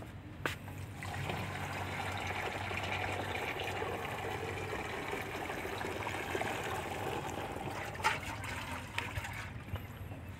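Liquid pesticide mix poured from a metal spouted can into a plastic backpack sprayer tank: a steady stream of liquid running into the tank, starting about a second in and thinning out near the end, with a brief knock about eight seconds in.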